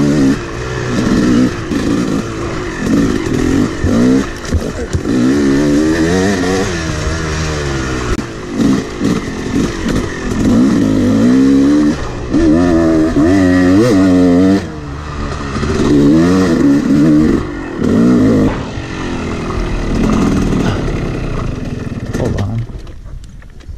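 Two-stroke Yamaha dirt bike engine revving up and down over and over under hard throttle, heard from a camera on the rider. Near the end the throttle closes and the engine note drops away.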